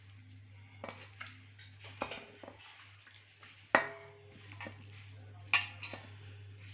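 Fish pieces being mixed by hand with spice paste and gram flour in a steel bowl: scattered knocks and clinks against the metal, the loudest about four seconds in with a brief ring. A steady low hum runs underneath.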